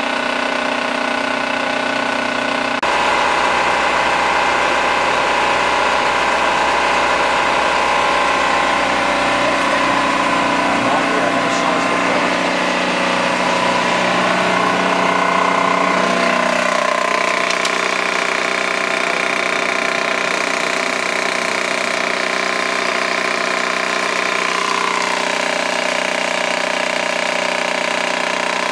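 Philips DP70 70mm film projector running film at 30 frames per second: a steady mechanical hum made of several held tones, which shift in pitch a few times.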